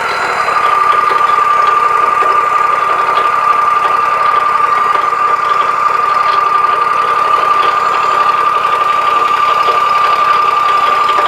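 Wood-Mizer LT40 band sawmill running, its band blade sawing through a pine log with a steady high whine over the engine's noise. The whine drops slightly in pitch about half a second in and then holds.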